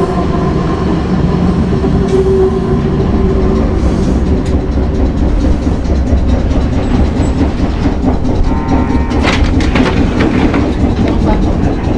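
Hankai Tramway Mo161 tram running, its nose-suspended traction motors and gears giving a steady hum over the rumble of wheels on rail. There is a sharp clatter about nine seconds in.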